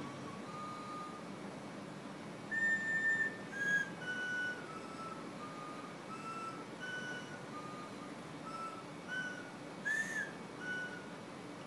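A slow melody played one note at a time on small pitched whistles, each note a short clear tone with a pause before the next, the notes moving up and down in pitch.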